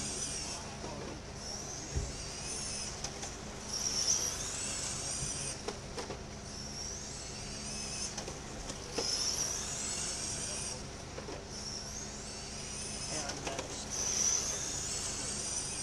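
Radio-controlled dirt oval late model car with a 17.5-turn brushless electric motor, lapping the track. Its high motor whine climbs as it speeds down each straight and drops as it lifts for the turns, about every two to three seconds.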